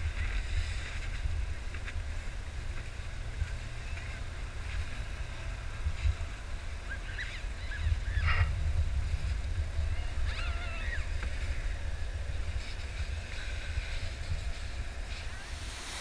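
Wind buffeting the microphone, a steady low rumble, with faint distant voices calling out a couple of times around the middle.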